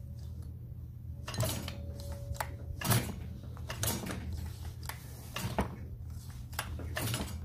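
Recoil starter rope of a Zenoah BK4302 two-stroke backpack brush cutter pulled several times, with short rasping pulls and the engine not firing. Each pull drags the cutting blade round with it, the sign of a faulty clutch.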